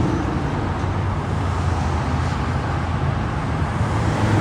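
A fire engine's motor running as the truck drives, a steady low engine sound with road noise and no siren.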